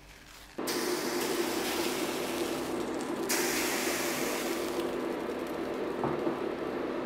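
Induction hob running under an empty enamelled cast-iron skillet as it preheats: a steady fan-like noise with a held hum, starting suddenly about half a second in. A brighter hiss rises over it from about three to five seconds in.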